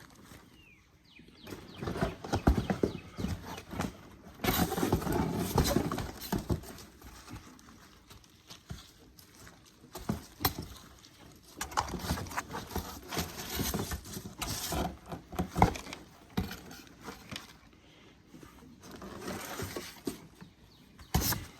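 Stripped bare copper wire being handled and piled onto a scale: irregular clinks and knocks of the stiff strands, with bursts of rustling, busiest a few seconds in.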